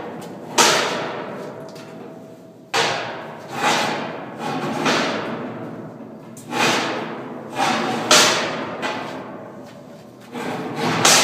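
A cowboy latch on a sheet-steel cattle-chute gate being worked by its long rod handle, with the gate knocked about: a string of sharp metal clanks about a second apart, each ringing out through the steel panel.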